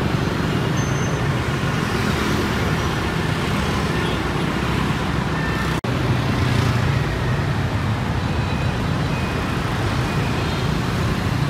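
Busy street traffic: a steady mix of motorbike and car engines and tyre noise as vehicles pass, with a momentary drop-out about six seconds in where two shots join.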